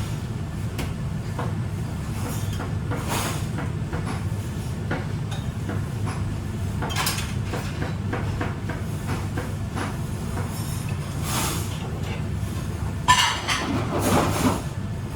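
Working restaurant kitchen: a steady low machine hum with a few brief clinks and clatters of dishes and utensils, the busiest clatter near the end.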